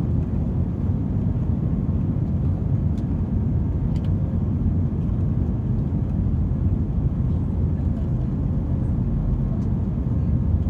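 Steady low rumble inside the cabin of an Airbus A320-200, with a faint steady hum on top.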